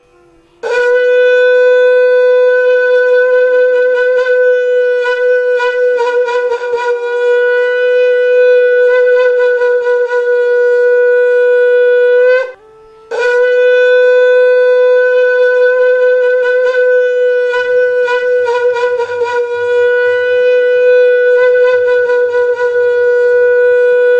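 Handmade wooden conch (shankh) blown in two long held blasts of one steady, bright note, each about twelve seconds, with a short breath between them about halfway through.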